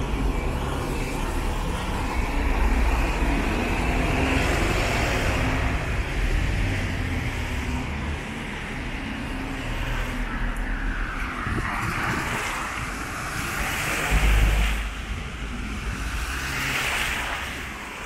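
Town-centre road traffic: a single-decker bus's diesel engine running close by, then several cars and vans passing one after another, their tyre and engine noise swelling and fading as each goes by.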